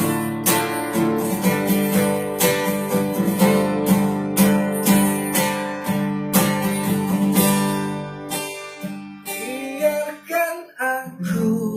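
Acoustic guitar strummed in a steady rhythm of chords. Near the end the strumming thins out and a singing voice begins.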